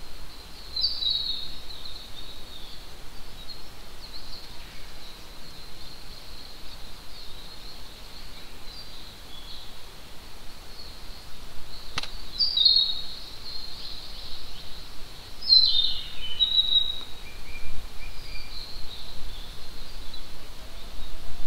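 Forest ambience: small songbirds give short high chirps and twitters, about a second in, twice around the middle and in a longer run a little later, over a thin steady high tone. A single sharp click comes near the middle, and right at the end a faint low flute-like whistle begins, the call of the white-bellied green pigeon.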